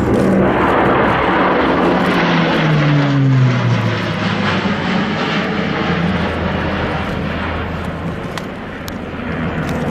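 Airbus A400M Atlas's four TP400-D6 turboprops and their eight-bladed propellers passing close by. A loud propeller drone drops in pitch between about two and four seconds in as the aircraft goes past, then settles into a lower, slightly quieter drone.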